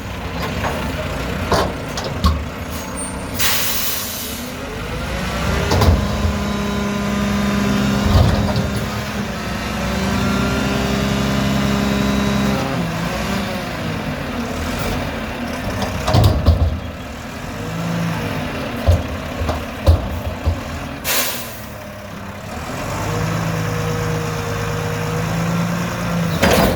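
Mack McNeilus front-loader garbage truck working a container: its diesel engine revs up and settles twice as it drives the lift hydraulics. An air brake hisses briefly twice, and sharp knocks come in between.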